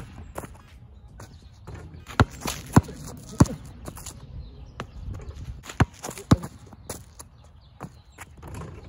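A basketball bouncing on a hard court: three thuds about half a second apart, a pause, then two more.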